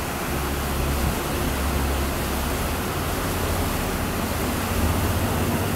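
Motorboat engine running steadily as a low hum under a constant rushing hiss of water along the hull.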